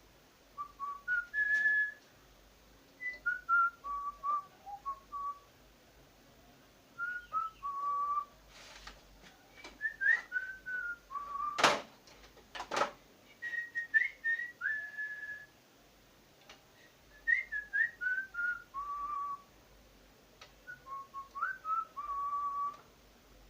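A person whistling a tune, single clear notes stepping and sliding in short phrases with pauses between. Two sharp clicks break in about halfway through.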